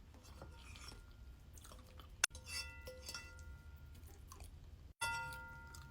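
Close-miked chewing of soft food, with cutlery clinking against a dish twice, each clink leaving a short fading ring.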